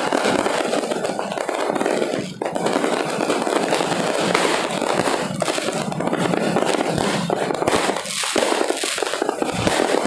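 Many firecrackers and fireworks going off at once, a dense, continuous crackle of overlapping pops and bangs.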